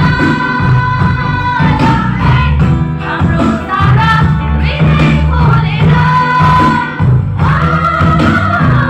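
Church choir of women singing a gospel song in unison over loud amplified accompaniment with a heavy bass.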